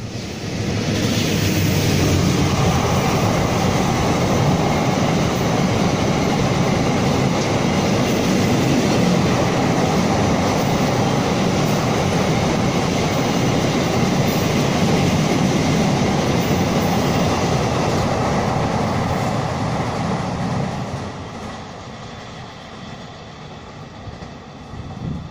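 Freight train, likely the empty cement train, running across a steel railway bridge: a loud, steady rumble and clatter of wagon wheels on the rails that builds about a second in and dies away about twenty seconds in as the last wagons clear the bridge.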